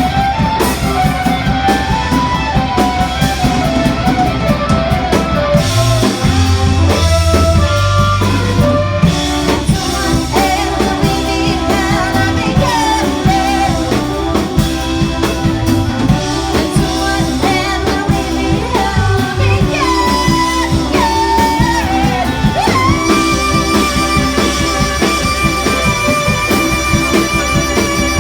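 Live band playing, with guitar over a drum kit. Near the end a long held note rings out for about five seconds before cutting off.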